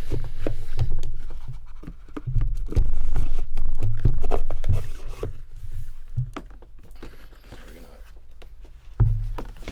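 Handling noise from booster packs and a cardboard box being put away: scraping and rustling with short clicks, and repeated low thumps that ease off about two-thirds of the way through, then one more thump near the end.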